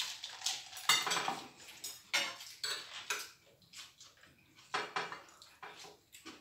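Metal forks and spoons clinking and scraping against plates and a serving pan during a meal: irregular sharp clinks, busiest in the first few seconds.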